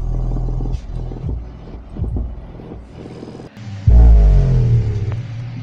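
Bass test music played through an unboxed subwoofer driver in free air: deep, heavy bass that thins out after the first second, then about four seconds in a loud, deep bass note that slides down in pitch.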